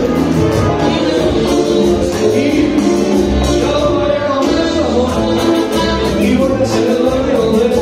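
Live band music with a singer, heard from within the concert crowd.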